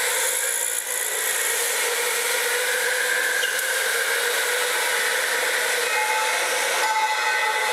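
Electric indoor go-karts running on the track, heard from trackside: a steady hiss of motors and tyres with a faint whine, and a higher whine joining about six seconds in.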